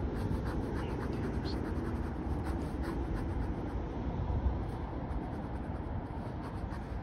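An ink pen scratching on sketchbook paper in quick, short shading strokes, densest in the first few seconds. A steady low rumble runs underneath.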